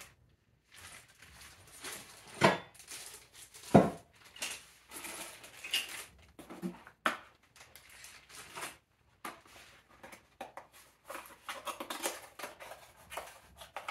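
Plastic bags crinkling and loose metal antenna hardware clinking as parts are handled and set down, with two sharp louder knocks a few seconds in. Near the end there is rustling of cardboard packaging.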